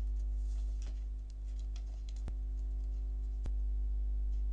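Steady low electrical hum and buzz on the recording, with a few light clicks from a computer keyboard and mouse. Two of the clicks are sharper and come about a second apart in the second half.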